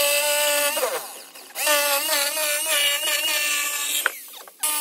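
Electric drill running in bursts: its motor whine runs for under a second and slides down in pitch as the trigger is let go. It then runs again for about two and a half seconds with its pitch wavering, spins down again, and starts a third time near the end.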